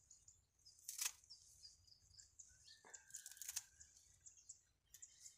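Scissors snipping through water celery stems: a few faint snips about one, three and five seconds in. Birds chirp faintly throughout.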